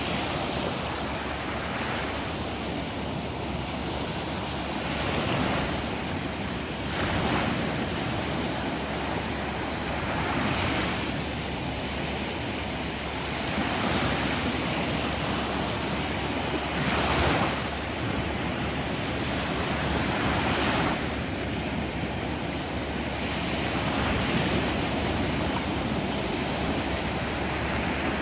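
Sea waves breaking and washing on the shore, the surf swelling and falling back every three to four seconds.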